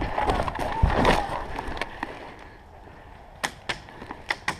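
Footsteps and rustling of leaves and brush as a player moves through woods, fading after about two seconds, followed by several short sharp snaps close together near the end.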